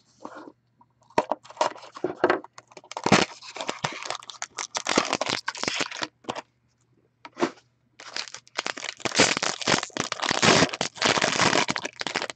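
A wrapped cardboard trading-card box being torn open, then the foil wrapper of an SP Game Used hockey card pack crinkling and tearing as it is pulled apart. The sound comes as two long spells of dense crinkling with a short lull between them, just past the middle.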